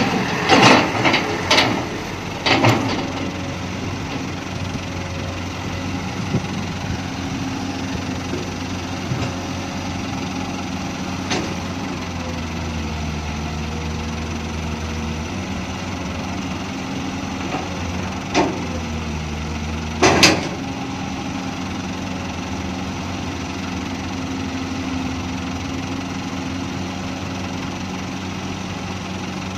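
Komatsu PC200 long-reach excavator's diesel engine running steadily, its note shifting for a while as the hydraulics swing and lift the boom. Several sharp knocks come in the first few seconds, and a few more later.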